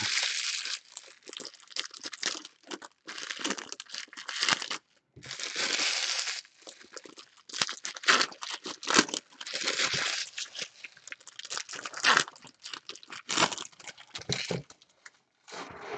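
Foil wrappers of 2020 Bowman Chrome baseball card packs being torn open and crumpled by hand: a run of irregular crinkling rustles with short pauses between them.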